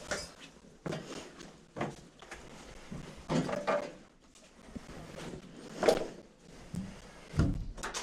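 Scattered knocks and scuffs, about six, spaced irregularly, with faint hiss between them.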